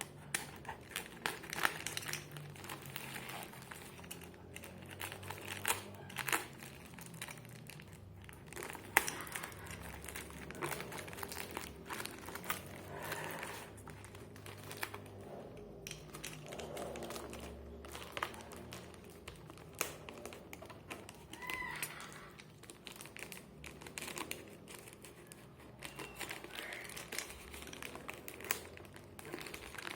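Packaging being handled and unwrapped: irregular crinkling and rustling with scattered small clicks and knocks.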